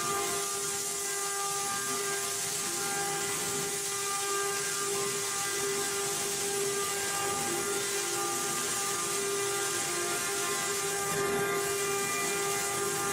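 CNC router spindle running at high speed with a steady high whine over a hiss, unchanging throughout, typical of the router working on board material.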